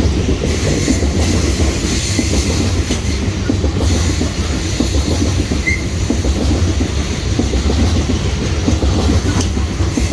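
Loaded BNSF coal train's freight cars rolling past: a steady, loud rumble of wheels on rail with constant clatter.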